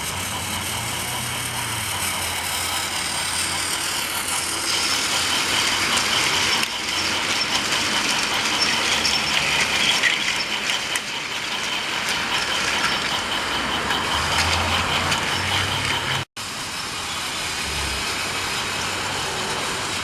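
Trackmaster RC Thomas toy engine's small battery-driven motor whirring steadily and its wheels and trucks rattling along plastic track as it pulls a train of trucks. The sound breaks off for an instant near the end.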